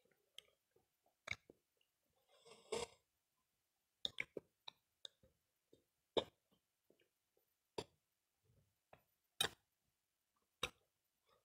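Mouth sounds of eating chewy cilok tapioca balls: about ten scattered, short wet lip smacks and clicks, with a brief breathy sound about three seconds in.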